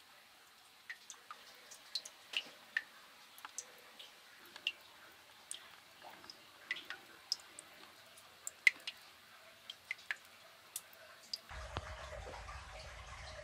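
Water dripping from stalactites in a limestone cave: irregular sharp plinks of different pitches, one or two a second. Near the end a low steady rumble comes in.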